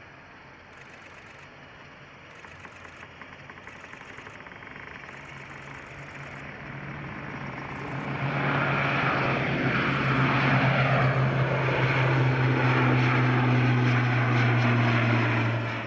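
Airbus A400M's turboprop engines and propellers. The sound grows louder over the first half, then holds a loud, steady low drone and cuts off suddenly near the end.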